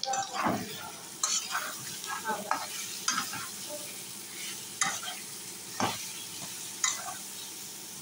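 Potato pieces and sliced onions sizzling in hot oil in a metal kadai. They are stirred, with short scrapes of the utensil against the pan about once a second.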